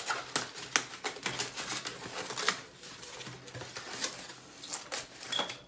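Paper takeout packaging crinkling and tearing as the tops of food containers are ripped off by hand: a dense, irregular run of sharp crackles.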